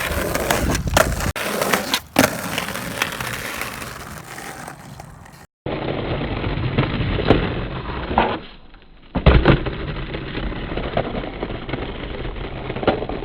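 Skateboard wheels rolling on pavement, with sharp clacks of the board popping and landing; the loudest clack comes about nine seconds in.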